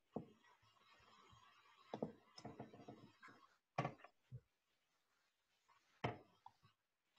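Near silence broken by a few faint knocks and clicks, spread out with gaps between them.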